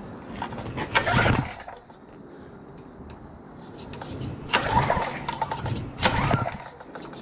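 Small gasoline engine of a Craftsman 2000 PSI pressure washer being pull-started by its recoil cord three times, turning over without catching. The owner has found it has zero compression and a flooded cylinder.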